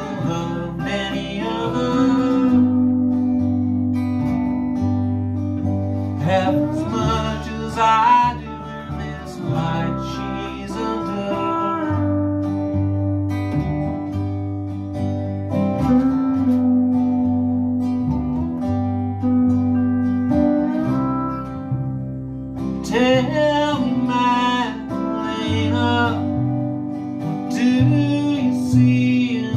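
Small acoustic band playing live: 8-string baritone ukulele, guitar and bowed cello, with pedal steel, in an instrumental stretch with singing coming in at times.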